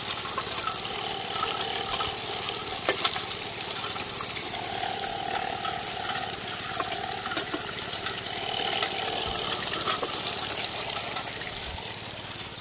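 Water rushing and splashing through a running gold trommel, with gravel clicking and rattling in the turning drum and a faint steady hum underneath. It eases off a little near the end.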